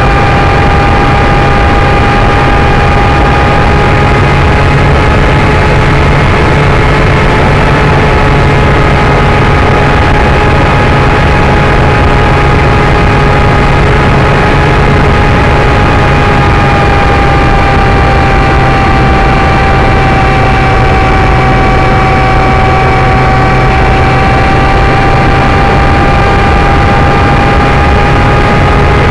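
Electric motor and propeller of a Parkzone Icon A5 model seaplane in flight, heard from its onboard camera: a steady whine over loud wind rush on the microphone. The whine sags a little in pitch past the middle and comes back up near the end.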